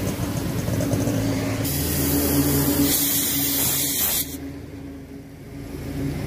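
Hot water being poured into a large pot of crab masala gravy, a hissing splash that starts about two seconds in and stops sharply about two and a half seconds later, over a steady low hum.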